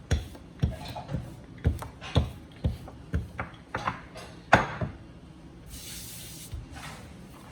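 Rolling pin knocking against the board as dough is rolled out, a knock with each stroke at about two a second, stopping about four and a half seconds in. A short hissing rustle follows about six seconds in.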